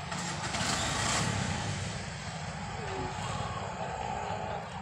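Street traffic: a steady low rumble of vehicle engines, with a vehicle passing and growing louder about a second in.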